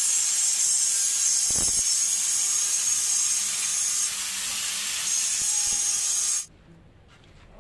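Electric angle grinder running against a granite door frame: a loud, steady grinding hiss with a high motor whine. It cuts off suddenly about six and a half seconds in.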